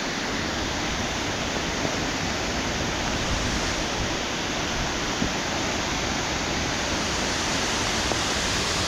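Waterfall rushing steadily: an unbroken hiss of falling water.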